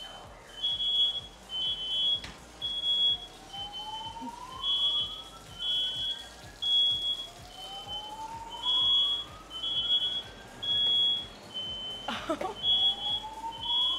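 Smoke alarm beeping without pause, a high-pitched beep about twice a second that alternates between two close pitches, set off by smoke from an olive-oil pan fire that has just been put out.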